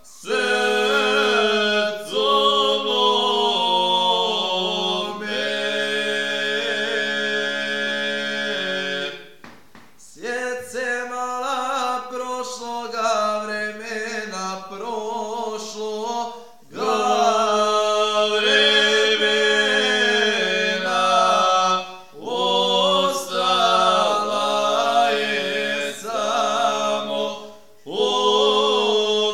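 Two men singing a Krajiška folk song unaccompanied in two voices: one holds a steady low note while the other's line wavers and bends above it. The song runs in long held phrases, broken by short pauses for breath.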